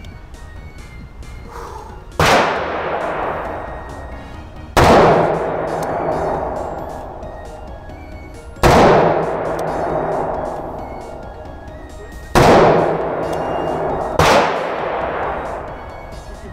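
.44 Remington Magnum revolver fired five times, two to four seconds apart, on an indoor range. Each shot is a sharp crack followed by a decaying echo. The rounds are hand-loaded cartridges being test-fired.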